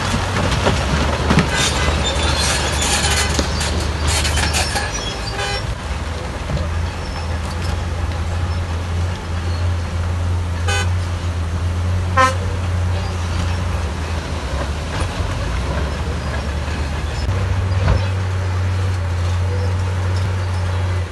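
Heavy diesel engines of a dump truck and a crawler bulldozer running steadily. Tipped rock clatters down for the first few seconds. About halfway through, a vehicle horn gives two short toots about a second and a half apart.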